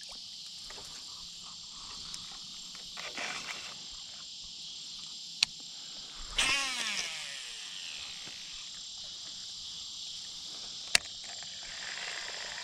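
Steady evening chorus of crickets and other insects, with a thin high ringing tone. Two sharp clicks, and about halfway through a brief, louder sound that falls in pitch.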